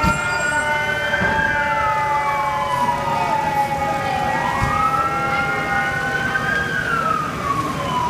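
Fire engine siren wailing, its pitch slowly rising and falling about twice, over several steady droning tones.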